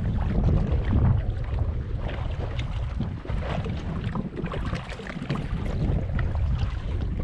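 Wind buffeting the microphone in uneven gusts, a heavy low rumble over the sound of the sea.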